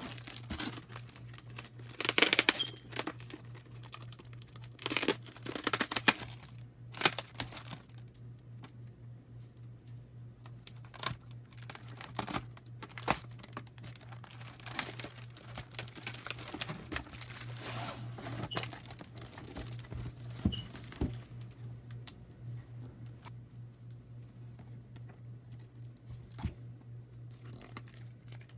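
Packaging being torn and crinkled by hand, in a few rustling bursts in the first several seconds, then lighter scattered handling clicks and rustles, over a steady low hum.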